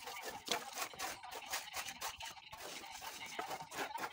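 Mason's trowel scraping and spreading cement mortar against a wooden float and the wall: a quick, irregular run of short scrapes and light taps.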